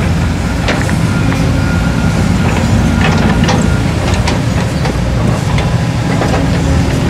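Diesel dump truck engines running at low speed as the trucks drive over a rutted dirt track, a steady low drone with scattered knocks and rattles.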